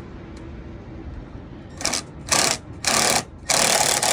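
Cordless drill run in four short bursts, the last and longest lasting about a second, backing out a small 8 mm cover bolt.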